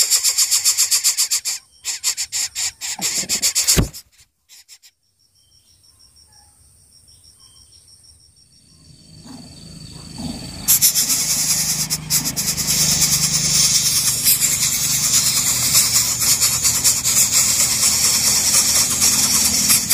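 Coucal nestlings begging with a harsh, rapid rasping hiss that stops about 4 seconds in. After a quieter stretch it starts again, loud and continuous, from about 11 seconds, with a low hum underneath.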